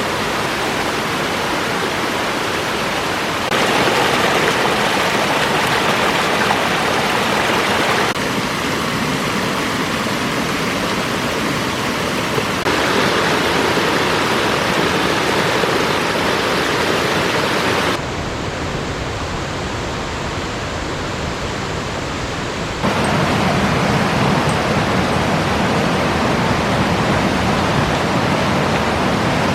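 Alpine mountain river rushing over rocks: a steady, loud wash of flowing water. Its loudness and tone change abruptly every few seconds, dropping to a duller, quieter rush about 18 seconds in and coming back fuller about 23 seconds in.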